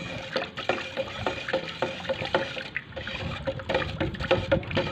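A flat stick stirring epoxy primer and its catalyst in a 4-litre metal paint can. The thick liquid sloshes and the stick scrapes the can in repeated strokes, a few a second.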